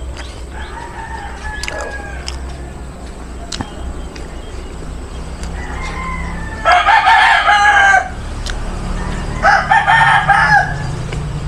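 Rooster crowing: two loud crows, the first about seven seconds in and the second about two seconds later, with a fainter crow near the start.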